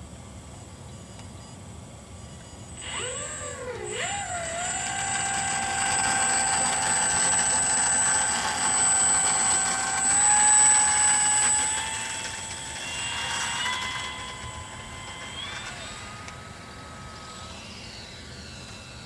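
Electric motor and propeller of a radio-controlled gyrocopter, running on a 3-cell battery, whining up about three seconds in with a wavering pitch, then holding steady and stepping up in pitch several times as the throttle is advanced for takeoff and climb. It fades near the end as the model flies away.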